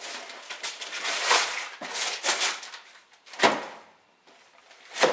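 Gift wrapping paper ripping and crinkling as a present is torn open: a run of rustles and tears, with louder rips about three and a half seconds in and again at the end.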